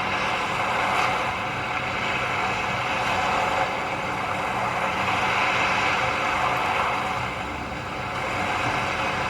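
Steady road traffic noise, a continuous hiss of passing vehicles that swells and eases slowly.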